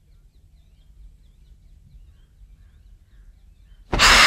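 Frilled lizard's threat hiss: a sudden loud hiss about four seconds in, as it gapes and flares its frill. Before it there are only faint high bird chirps.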